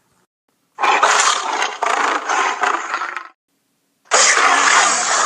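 A Tyrannosaurus roar sound effect, given twice: a long, harsh, rasping roar of about two and a half seconds, then a shorter one about a second later.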